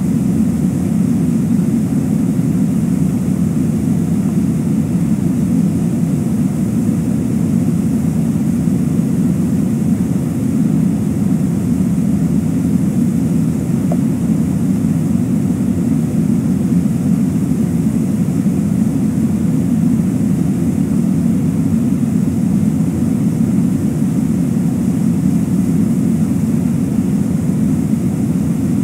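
Steady low rushing noise of river water running past the bank, even and unbroken.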